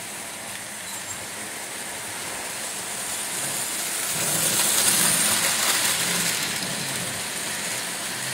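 Model train running on the layout's track, a steady rolling rumble with a faint motor hum that grows louder near the middle as it passes close, then eases off.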